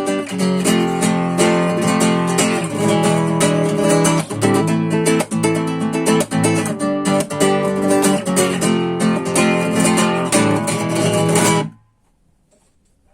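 Rodriguez RC644 MN classical guitar strung with nylon Hannabach 500HT strings, played in a busy passage of plucked notes and chords. The playing stops sharply near the end and the strings are damped to near silence.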